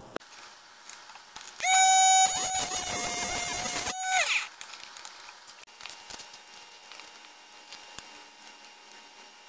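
Electric piston-ring end-gap grinder switched on, its small abrasive wheel running with a steady whine for about three seconds as a top ring's end is ground to open the gap, then switched off and spinning down. Faint handling clicks follow.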